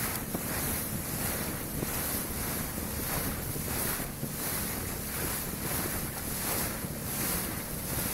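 Small motorboat running at speed over choppy sea: a steady rush of engine, hull and churning water, with wind buffeting the microphone.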